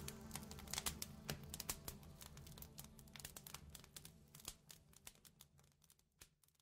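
Fire crackling with irregular pops and snaps, fading out along with the last low notes of a lounge track; both die away near the end.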